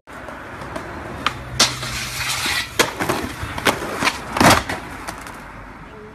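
Skateboard on pavement: a run of sharp clacks and slaps from the board's deck and wheels hitting the ground, over a low rumble. The loudest hit comes about four and a half seconds in.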